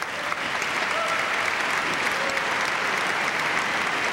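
Large audience applauding: a dense, steady round of clapping.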